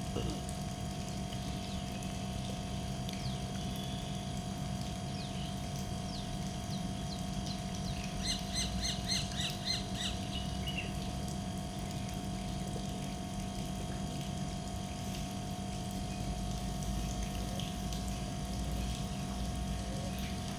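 Birds calling outdoors: scattered short chirps, then a quick run of about ten rapid, evenly repeated calls about eight seconds in, over a steady background hum.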